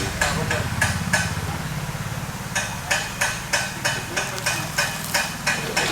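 A metal utensil clinking and tapping against a cooking pan, a few strikes at first and then a steady run of about four a second from midway, over a steady low hum.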